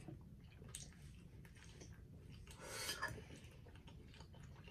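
Quiet chewing and wet mouth sounds of someone eating a forkful of fettuccine Alfredo, with faint clicks and a short, louder rush of slurping noise a little past halfway.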